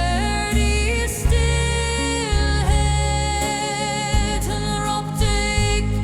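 Dark folk neoclassical music: a held melody line that glides from note to note over deep, sustained low notes, with no sung words.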